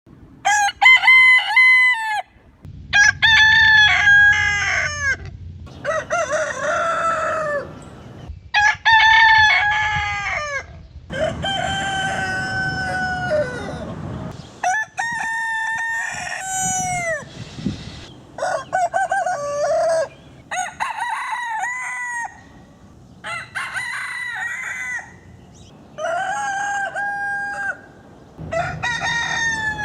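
Roosters crowing one after another, about a dozen drawn-out crows in a row, each lasting a second or two with short pauses between them.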